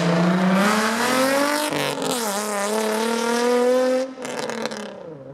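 2005 Nissan 350Z's 3.5-litre V6, straight-piped through the stock manifolds, accelerating hard as the car drives past. The engine note climbs in pitch, dips briefly about two seconds in, climbs again, then drops away sharply about four seconds in and falls in pitch as it moves off.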